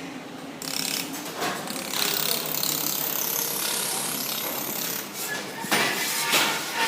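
Laser welding machine at work, a crackling hiss with a few sharper louder clicks near the end.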